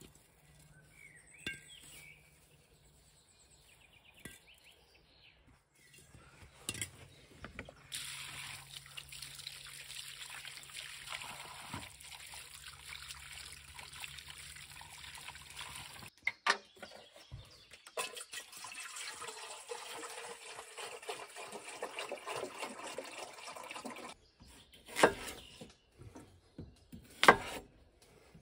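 Water from a barrel's tap runs steadily onto potatoes in a colander as they are rinsed by hand. It stops for a moment about halfway, then runs again. Near the end come two sharp knocks of a knife cutting potatoes on a wooden board.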